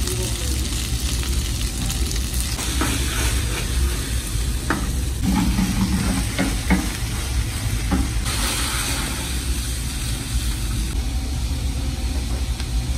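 Diced onion, garlic and bell peppers sizzling in oil in a frying pan over a gas burner, over a steady low hum. A few knocks and clatters come as the pan is tossed, starting a few seconds in, and the sizzle flares up louder a little past the middle.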